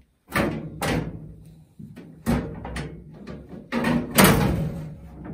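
A series of sharp metal knocks and clunks, about five loud ones, each ringing briefly: sheet-metal parts of a parts washer being handled and set in place.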